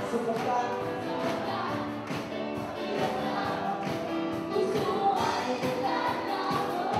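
Upbeat Tagalog praise song sung into microphones over music with a steady beat.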